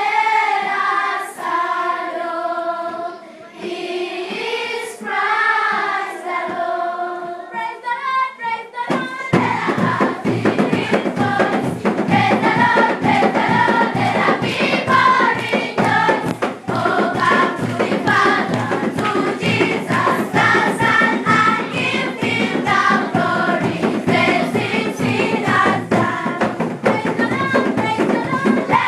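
Children's choir singing in several parts, holding long sliding notes. About nine seconds in, a steady rhythmic beat joins and the singing becomes faster and livelier.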